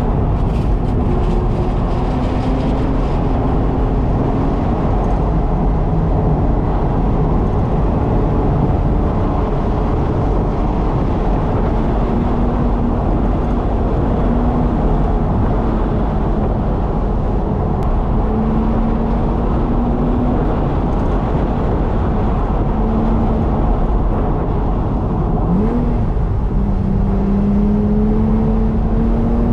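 Car driving, heard from inside the cabin: steady road and engine noise, with the engine note wandering up and down and climbing near the end as the car speeds up.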